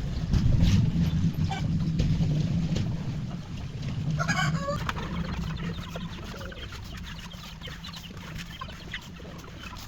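Backyard chickens clucking as they feed, with scattered small ticks and one louder, short call about four seconds in. A low rumble sits under the first half.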